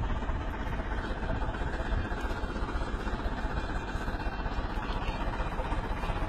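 Diesel engine of a wheel loader running steadily at idle.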